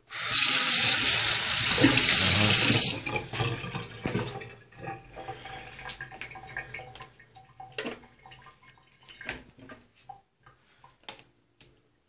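Kitchen tap running full into a stainless steel sink for about three seconds, then stopping suddenly. Afterwards only quieter scattered knocks and clicks.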